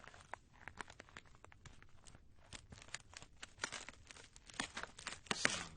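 Heavy footsteps crunching on ice: a run of sharp crackles and snaps, with louder clustered crunches in the second half.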